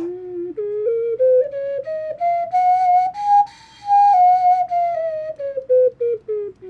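A 3D-printed six-hole pendant ocarina playing a scale: clear, pure notes stepping up one at a time and then back down, with a short break in the breath at the top.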